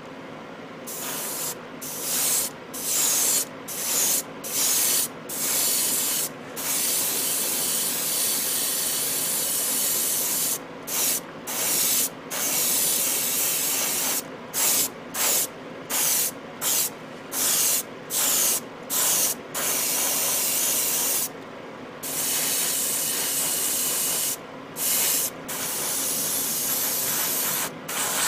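Airbrush spraying paint, its trigger pressed and released over and over: many short hissing bursts of about half a second, with a few longer passes lasting a few seconds.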